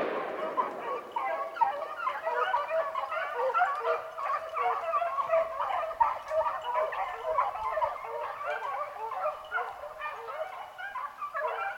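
A pack of beagles baying in full cry on a rabbit, many hound voices overlapping without a break. A gunshot's echo is dying away at the very start.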